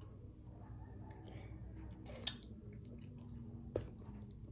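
Faint chewing of a bite of native guava, with a few soft mouth clicks, over a low steady hum.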